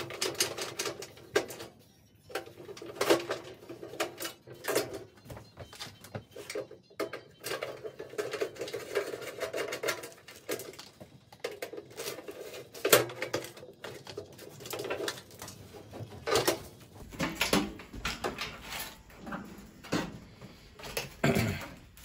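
Irregular clicks, taps and metallic knocks from tools and sheet-metal parts being worked while the back panel of a microwave is taken off.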